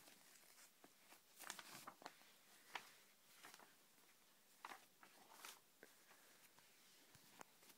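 Faint rustling and crinkling of glossy magazine pages being handled, in a few short bursts with soft clicks in between.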